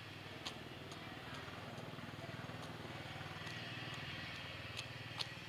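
A small engine running steadily with a low, fast-pulsing hum, and a few sharp clicks.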